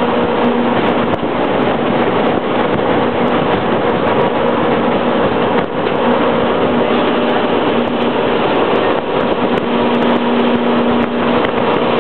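Jet boat running at speed: a steady engine drone under a loud, even rush of wind and water.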